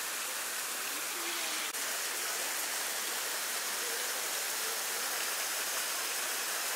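Steady rushing of running water, an even hiss with no breaks, with a momentary drop about two seconds in.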